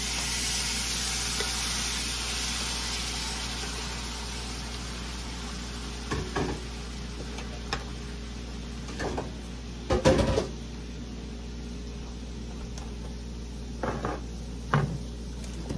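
Seasoned shrimp sizzling in a hot pan, the sizzle loudest at first and slowly dying down. A few short knocks and clatters of cookware come through it, the loudest about ten seconds in.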